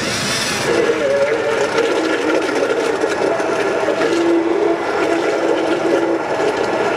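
Immersion stick blender running in a plastic pitcher, puréeing a thick peanut-soy sauce. Its motor gives a steady drone whose pitch shifts a few times as the blade works through the mix.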